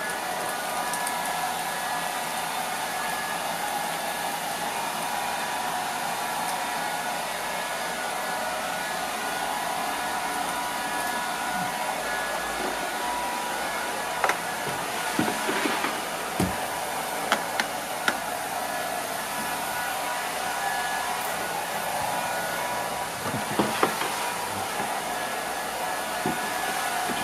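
Steady electric whirring of a battery-powered toy bug's motor, with a scatter of light knocks and taps in the middle and again near the end.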